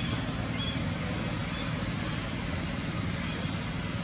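Steady outdoor background noise, an even rumble and hiss like distant traffic, with a few faint, short, high chirps.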